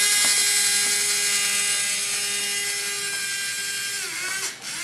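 Small battery-powered DC toy motor driving a plastic gear, running with a steady whine after spinning up, then slowing and stopping near the end. The reconnected motor and gears are working again.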